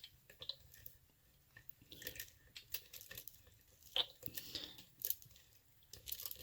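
Faint scattered clicks and light scraping of a padlock being set into a small vise and clamped, with one sharper metal click about four seconds in.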